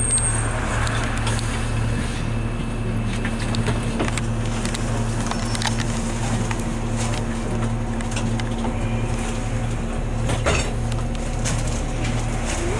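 Diesel engine of a 2001 New Flyer D40LF city bus idling while the bus stands still, heard from inside the cabin: a steady low hum with a slight even pulse, and scattered light rattles and clicks.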